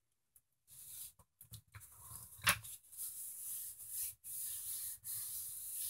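Hands pressing and smoothing a folded sheet of paper closed over paint-soaked strings: a soft paper rustle with small clicks and one sharper tap about two and a half seconds in.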